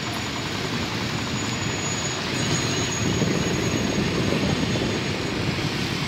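Steady wind rush and road noise from riding on a moving motor scooter, the wind buffeting the microphone.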